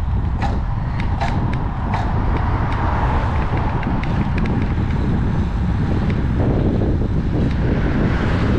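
Wind buffeting the microphone of a camera on a moving road bike, a steady loud rumble with hiss that swells in the middle and near the end. A few sharp ticks come in the first two seconds.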